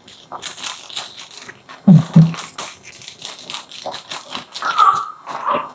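Dry crunching and crackling as ingredients are crumbled between the fingers over a cooking pot, with two low thumps about two seconds in, the loudest sounds. Near the end a newborn baby starts to cry.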